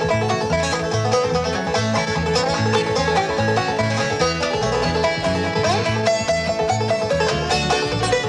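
Old-time string band instrumental break: clawhammer banjo with lead guitar and slide guitar over a steady, bouncing bass line, no singing.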